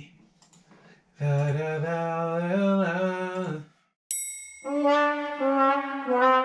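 A man humming a melody in long held notes, a guide vocal for a new song. After about a second of quiet the humming runs for two or three seconds and stops. Near the end a bell-like ding starts suddenly, followed by more held, stepwise melodic notes.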